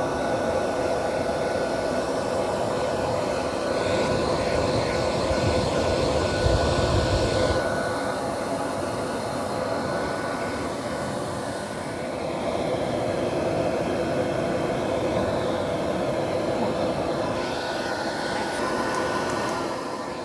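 Professional dog-grooming dryer blowing steadily through its hose onto a dog's coat, its sound shifting a little as the airflow moves, then starting to wind down at the very end.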